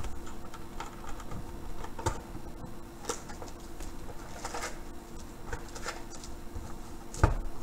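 Foil-wrapped trading card packs crinkling and rustling as they are lifted out of an opened cardboard hobby box, in scattered short bursts, with a single loud thump near the end as they are set down.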